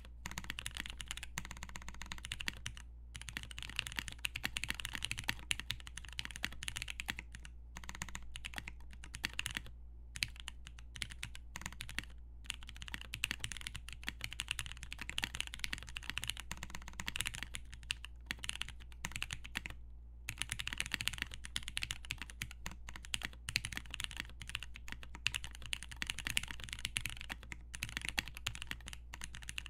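Continuous typing on a dnworksco Ryujin TKL mechanical keyboard with lubed Cherry MX Brown tactile switches, a polycarbonate plate and Cherry doubleshot keycaps: rapid key clacks in long runs, broken by a few short pauses.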